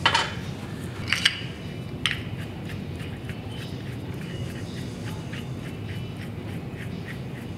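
Small metal parts and hand tools clicking on a steel table top: a small bevel gear set down, then an elevation shaft and hex key picked up and handled. There are a few sharp clicks in the first two seconds and lighter ticks after, over a steady low room hum.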